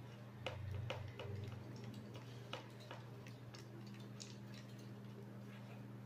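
Light clicks and ticks of a screwdriver and the fan motor's plastic oscillation housing being handled and fitted. There is a quick cluster in the first two seconds, then scattered single ticks, over a steady low hum.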